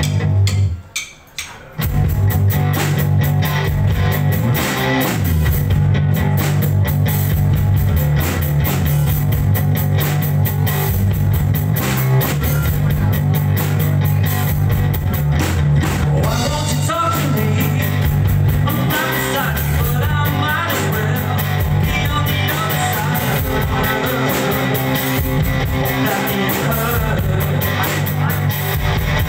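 A two-piece rock band playing live: guitar and drum kit. A couple of sharp hits, a short gap, then the full band kicks in about two seconds in and plays on steadily.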